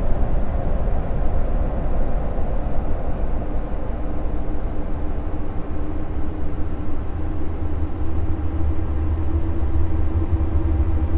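Deep, steady space-ambience drone presented as the sound of Jupiter's moon Callisto: a heavy low rumble under a hiss. A faint steady hum joins it about four seconds in.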